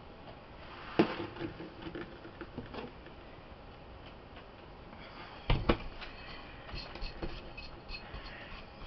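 Handling noises on a counter: a sharp tap about a second in, two louder knocks a little past halfway, then soft scraping and small ticks as the plastic mixing bowl is pulled across the counter.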